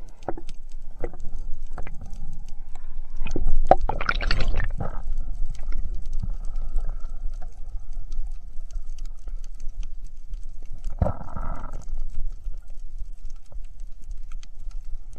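Underwater sound picked up by a camera in its waterproof housing while moving along a reef: scattered crackling clicks over a steady low rumble. There is a louder rush of water about four seconds in, and a shorter one at about eleven seconds.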